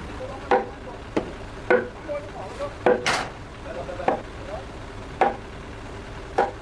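Repeated blows of a hammer or mallet on timber, a sharp knock with a short woody ring about once a second, as frame joints are driven together. One louder, hissier knock comes about three seconds in.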